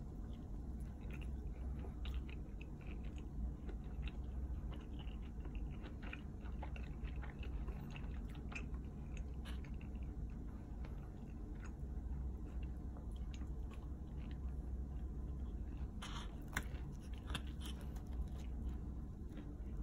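A person chewing pineapple-topped pizza close to the microphone: many small clicks and crunches of crust and toppings, louder for a moment about sixteen seconds in, over a low steady hum.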